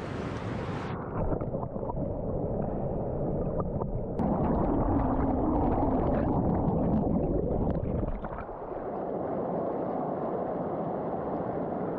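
Rushing water of the Tirthan River, a steady noisy flow that grows louder for a few seconds in the middle.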